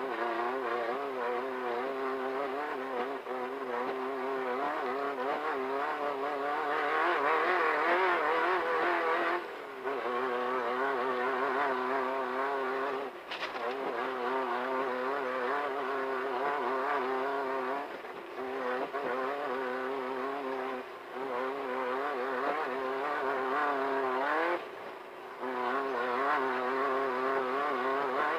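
A Beetle-based desert race car's engine running hard at high revs, its note wavering over rough ground. It drops briefly about five times as the throttle is lifted or a gear is changed, and a single sharp knock comes about halfway through.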